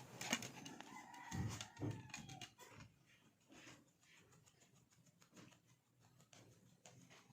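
A faint, drawn-out animal call lasting about two seconds, falling slightly in pitch at the end, with scattered light clicks and taps around it.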